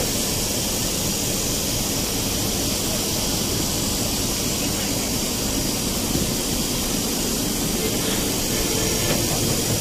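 Steady cabin noise of a moving coach bus: a constant low engine and road rumble under a high hiss.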